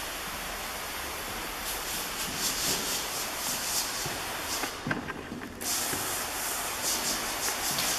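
Handheld sprayer wand hissing steadily as it lays a fine mist of concrete stain onto a floor. About five seconds in the spray stops for just under a second, with a few soft knocks, then resumes.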